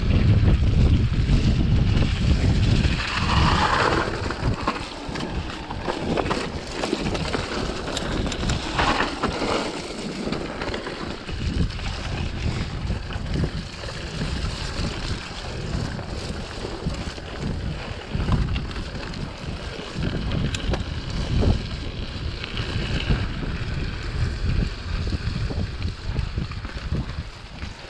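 Mountain bike descending a rough dirt and rock trail at speed: wind buffeting the microphone over the rumble of the tyres, with the bike rattling and knocking over rocks and bumps.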